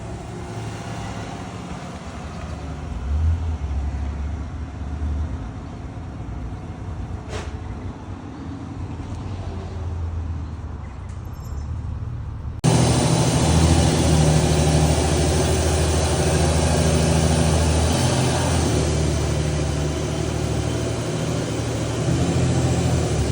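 Car engine running at low revs, a steady low hum. About thirteen seconds in the sound jumps abruptly louder, and the engine note now carries a broad hiss over it.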